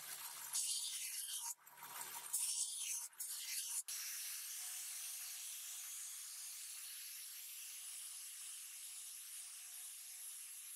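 Rasping strokes of a thin metal strip pressed against a running bench belt sander, broken by short pauses. About four seconds in the sound cuts off abruptly and gives way to a steady, even hiss.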